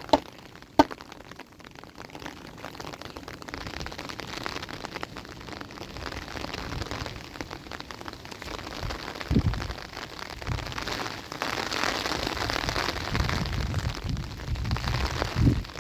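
Steady rain falling, growing louder in the second half, with two sharp knocks right at the start and a few dull thumps later.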